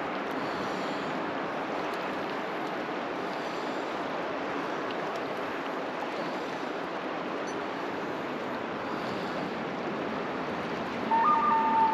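Steady rush of river water flowing over shallow rocks. About a second before the end, a short run of held high notes starts over it, louder than the water.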